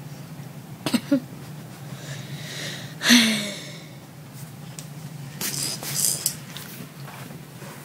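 A baby fussing at a feeding bottle: two short grunts about a second in, then a louder, falling, cry-like sound about three seconds in, followed by rustling and handling noise.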